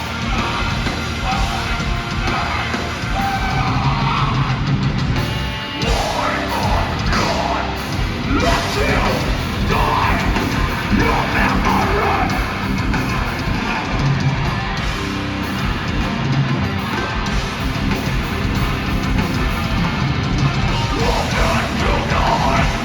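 Metalcore band playing live: loud heavy music with distorted guitars, drums and vocals.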